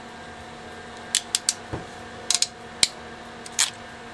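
A PowerPole crimping tool and a freshly crimped contact being handled, giving about seven light, sharp clicks and snaps in small groups over a faint steady hum.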